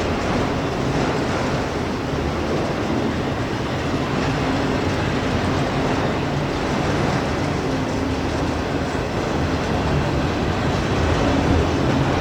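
CSX freight train rolling past, a steady rumble of wheels on rail with a low engine drone underneath, growing slightly louder near the end.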